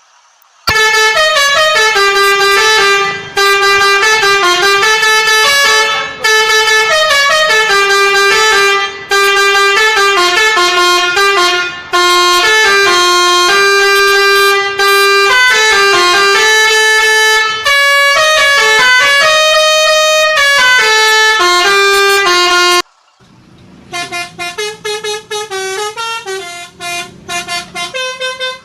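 Basuri telolet musical horn on a truck playing a loud tune of stepping notes, several pitches at once, in long phrases with brief breaks. It stops abruptly a little before the end, and a quieter run of short, quick notes follows.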